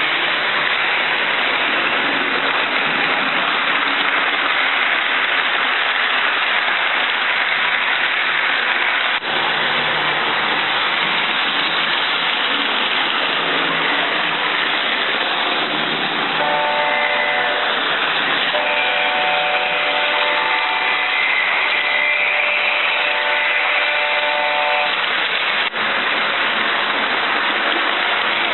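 HO-scale model ND5 diesel locomotive running on the layout track with a steady hissing running noise, and a multi-tone horn sounding in several blasts from a little past halfway.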